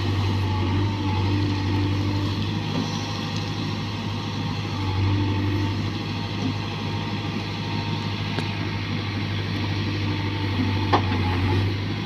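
JCB backhoe loader's diesel engine running steadily under load as the backhoe arm works, with a single sharp knock near the end.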